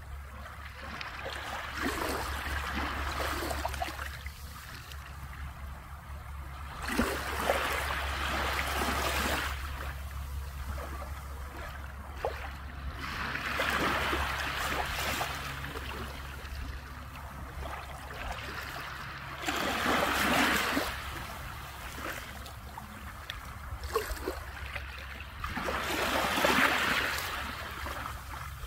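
Small waves lapping and washing onto a beach, one soft wash every five or six seconds, over a steady low rumble.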